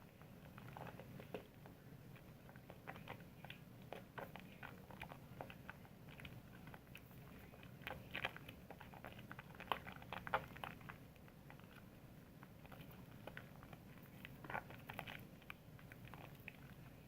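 Soap being worked into a lather: faint, irregular wet crackling and small clicks, thickest and loudest about eight to ten seconds in.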